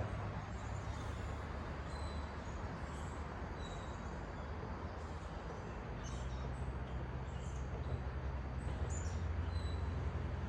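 Small birds chirping with many short, high calls over a steady low rumble.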